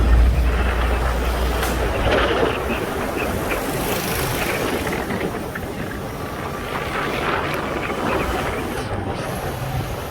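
Steady road noise of a moving vehicle: a low rumble that fades over the first couple of seconds, leaving an even hiss.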